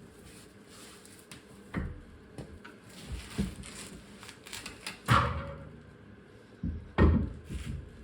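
A few irregular knocks and clunks of parts or tools being handled, the loudest about five seconds in and another about seven seconds in.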